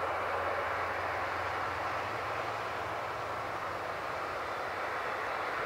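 Jet airliner engine noise from an aircraft out of sight: a steady rush with a low hum under it.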